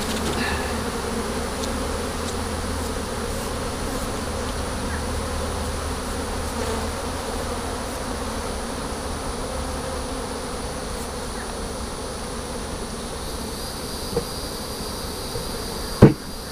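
Many honeybees buzzing steadily around an opened hive, a dense hum of wingbeats. Near the end, a sharp knock.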